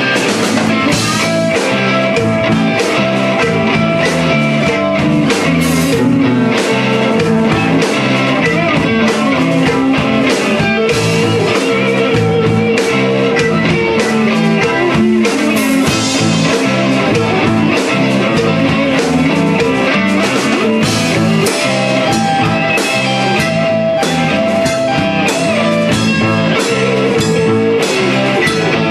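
Band music with guitar and a steady drum beat, playing without a break, with no singing picked up.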